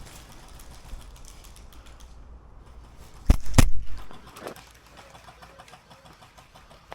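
Two sharp knocks about a third of a second apart, the loudest sound here, followed by a brief low rumble, over faint scattered ticking.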